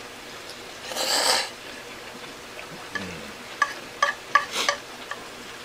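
Sounds of eating at the table: a short scraping rush about a second in, then about five quick light clicks and taps, as of utensils on a dish.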